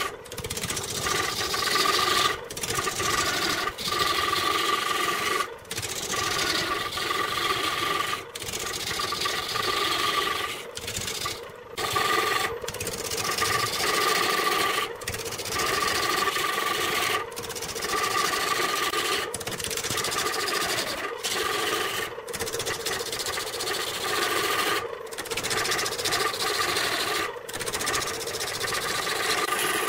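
Wood lathe spinning a large wooden cylinder while a hand-held turning tool cuts into it: a continuous rasping scrape over a steady whine. The cut breaks off briefly every second or two.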